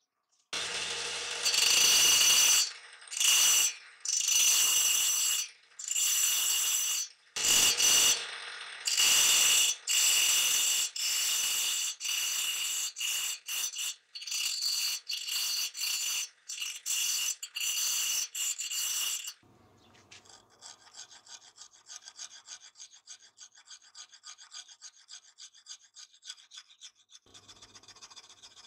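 A thin cutting disc on a motor-driven spindle making more than a dozen short cuts into a wooden knife-handle blank, each cut about a second long with a high whine. About two-thirds of the way through this gives way to a hand rasp filing the wood in quick, much quieter strokes.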